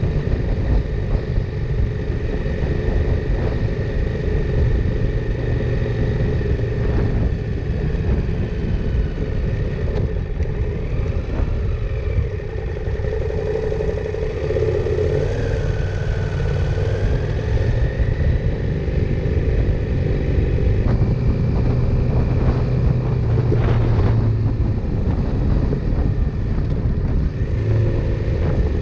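KTM 890 Adventure R's parallel-twin engine running while the motorcycle is ridden, its pitch rising and falling with the throttle, over steady wind and road noise. A few brief knocks come through along the way.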